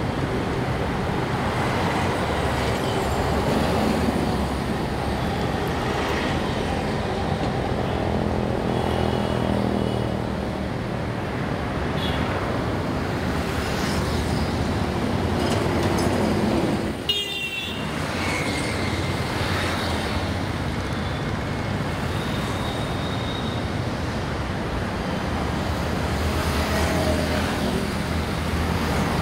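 Steady city road traffic: buses, cars, motorcycles and auto-rickshaws running past, with a few short horn toots. The sound cuts out for a moment about halfway through, then resumes.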